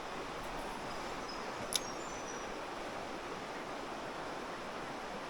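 Creek water running steadily, with one sharp click a little under two seconds in.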